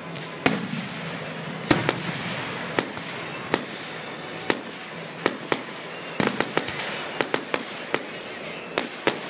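Aerial fireworks shells bursting in a run of some twenty sharp bangs, spaced out at first and coming in quicker clusters from about six seconds in.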